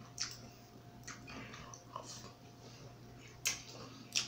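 Close-up eating sounds: quiet chewing of a mouthful of rice and sausage, broken by a few short sharp mouth clicks, the two loudest near the end.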